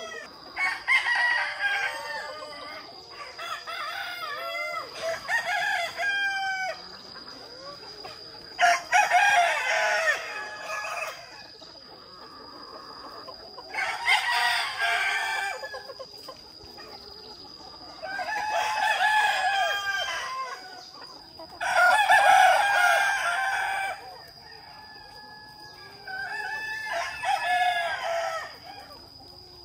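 A flock of roosters crowing again and again, several crows overlapping, each lasting one to two seconds. Hens cluck between the crows.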